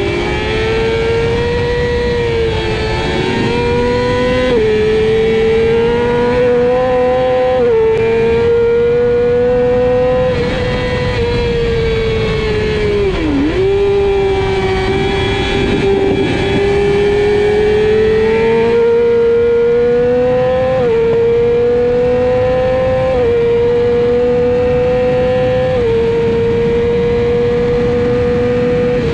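A 600cc sportbike engine held at high revs under racing load, heard from on board over rushing wind. Its note climbs slowly, jumps suddenly at each gear change, and about halfway through falls sharply and climbs again as the bike slows for a corner.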